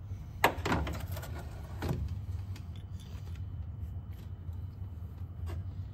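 Small metal parts being handled by hand in a car engine bay: a few sharp metallic clinks, the loudest about half a second in and fainter ticks later, over a steady low hum.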